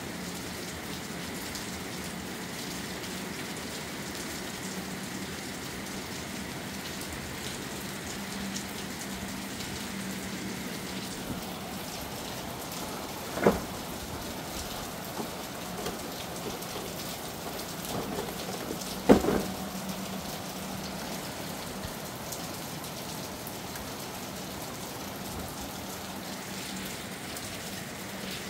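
Steady rain falling and pattering on surfaces, with two sharp knocks, one about halfway through and a louder one a few seconds later.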